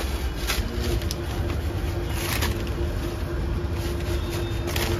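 Steady low rumble of busy street traffic, with a constant hum and a few sharp clicks.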